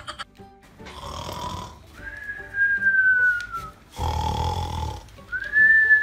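Cartoon-style snoring twice: each time a snore on the in-breath is followed by a long, high, steady whistle on the out-breath. Music plays under it.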